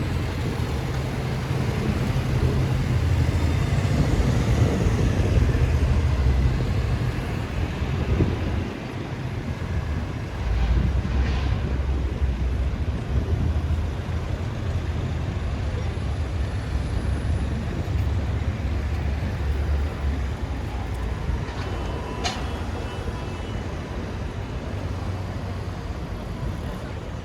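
City street traffic: vehicle engines, heavy ones among them, passing with a steady low rumble. It is loudest about five seconds in and eases briefly around nine seconds. A short sharp click comes about twenty-two seconds in.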